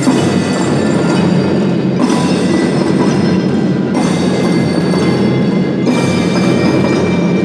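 Kindergarten marching drum band playing, with bell-like mallet percussion over the band. Held chords change about every two seconds.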